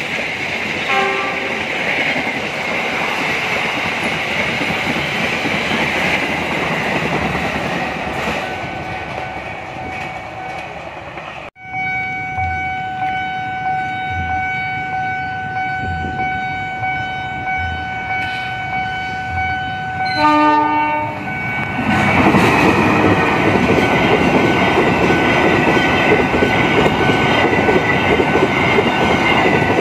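A passenger train's coaches running past with steady wheel and rail noise. It breaks off, and a steady electronic-sounding tone with faint regular thumps follows. About twenty seconds in, a locomotive horn sounds briefly, then a container freight train passes loudly with continuous rolling noise.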